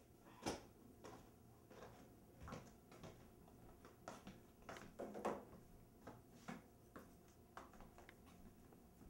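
Quiet room tone with faint, scattered knocks and clicks of someone moving about a small kitchen and handling things, the sharpest about half a second in and around five seconds in.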